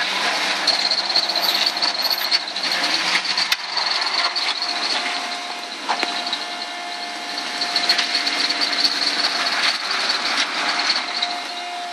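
Rock-crawling buggy's engine running under load as it creeps down a boulder ledge, with a high steady whine and a few sharp knocks as the tyres and chassis come down on the rock.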